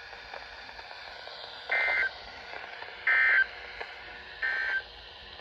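Three short bursts of SAME digital data tones, a harsh electronic warble, about a second and a half apart, on a NOAA Weather Radio broadcast. This is the end-of-message code that marks the close of the emergency alert.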